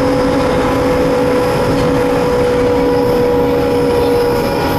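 Cab noise of an EMD WDG4D diesel-electric locomotive running at speed: the 16-cylinder two-stroke diesel engine and running gear make a loud, steady drone with a steady whine over it.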